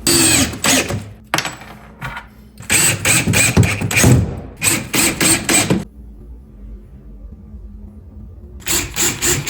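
Power screwdriver driving screws into cement board in several bursts, with a pause of a couple of seconds near the end before it starts again.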